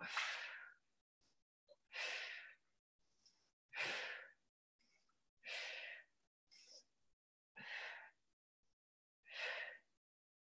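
A person breathing hard through exercise reps: six sharp exhales, one about every two seconds, with quick fainter inhales between them. Each breath out falls on the lifting part of a rep.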